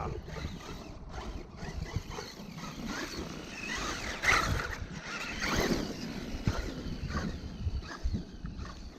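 Traxxas E-Revo 2.0 RC monster truck's brushless motor whining and its tyres churning through wet sand, louder in the middle with some rising and falling pitch, over wind buffeting the microphone. The truck is running on a battery close to its low-voltage cutoff.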